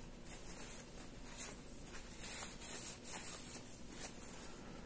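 Faint rubbing and rustling of a paper towel wiping grease off a freshly formed aluminum cooling fin in gloved hands, in short irregular strokes.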